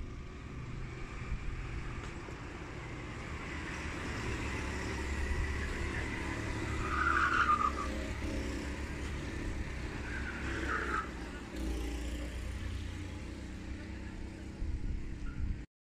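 Go-kart engines running around a track, heard from a distance, with two short tyre squeals about seven and eleven seconds in, the first the louder. The sound cuts off abruptly just before the end.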